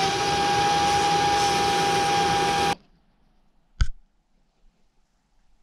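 Cordless drill running for under three seconds as it spins a Honda Gold Wing 1000 starter motor's armature chucked in it, for cleaning the commutator. It gives one steady whine over a hiss, starting and stopping abruptly. About a second after it stops comes a single sharp knock.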